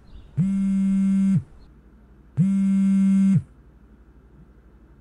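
Mobile phone buzzing on vibrate with an incoming call: two one-second buzzes a second apart, then it stops.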